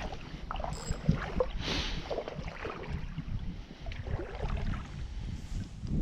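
Water sloshing and splashing in small irregular bursts, with low wind rumble on the microphone.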